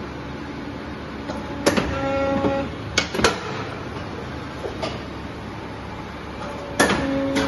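Polar 76 EM paper guillotine running with a steady mechanical hum. Twice a sharp click sets off a short pitched whine of about half a second, and more clicks follow the first one.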